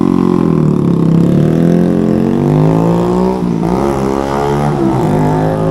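Kawasaki Z125 Pro's single-cylinder engine, on a new aftermarket exhaust, revving as the bike accelerates away. Its note rises, drops briefly about three and a half seconds in at an upshift, then climbs again.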